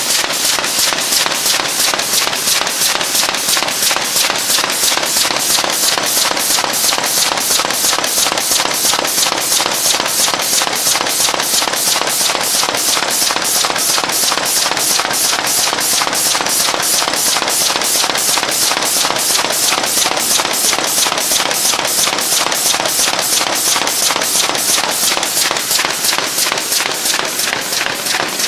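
Paperboard six-bottle-carrier making machine running, a loud, fast and even mechanical clacking with each cycle.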